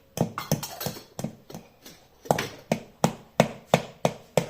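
Spoon knocking against a mixing bowl while chapati dough ingredients are stirred. The knocks are uneven at first, then settle into a steady rhythm of about three a second.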